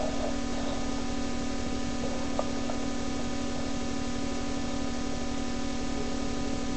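Steady electrical hum and hiss, a buzz with several fixed tones over static, and a single faint click about two and a half seconds in.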